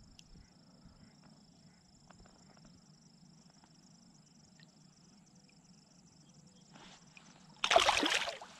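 Quiet water with faint small ticks, then near the end a short, loud splash as a released bass kicks free of the hand and swims off at the surface.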